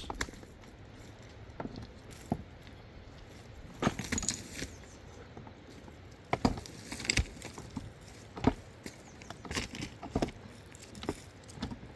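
Irregular light clicks and knocks, a dozen or so scattered sharp taps, with a few louder ones around the middle.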